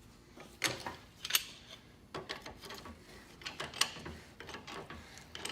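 Old J.H. Williams wrench's freed sliding jaw being worked back and forth, metal scraping and clicking in a few irregular strokes.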